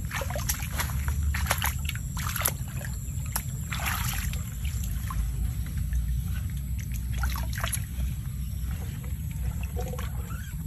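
Shallow muddy water splashing and sloshing as a bamboo eel trap is handled in it: scattered small splashes and clicks, busiest in the first few seconds and again near the middle, over a steady low rumble.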